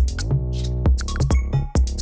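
Electronic background music with a steady drum-machine beat and sustained synth notes.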